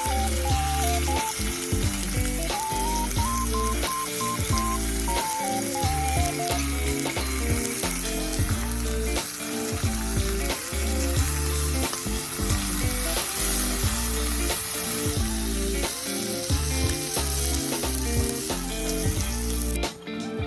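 Food frying and sizzling over a wood fire, a steady hiss with fine crackles, under background music with a melody. Both cut off suddenly near the end.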